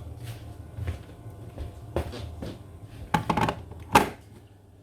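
Kitchen clatter: a few sharp knocks and clicks of cookware and cupboards being handled, the loudest about four seconds in, over a low steady hum.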